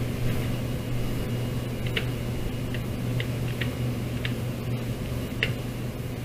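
Computer keyboard keys being typed at a slow, uneven pace, about seven separate keystroke clicks, over a steady low hum.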